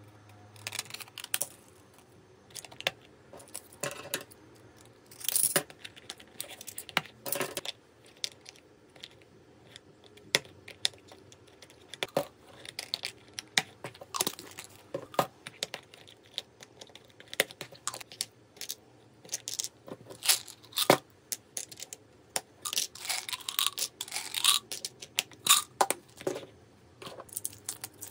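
Close handling sounds of a plastic pill organizer being filled: irregular clicks and rattles of capsules pressed out of foil blister packs and dropped into the compartments, and plastic lids snapping. There are a few longer stretches of foil or packet crinkling, the longest about two thirds of the way through.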